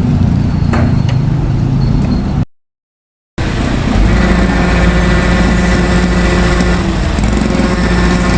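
A heavy vehicle engine running steadily. It drops out to dead silence for about a second, about two and a half seconds in, then resumes as a steady hum with a clear pitch.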